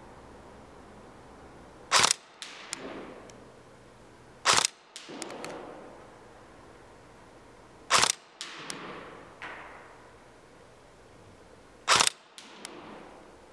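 Tokyo Marui AK74MN airsoft gun firing single shots, four in all, a few seconds apart. Each sharp shot is followed by a couple of faint clicks.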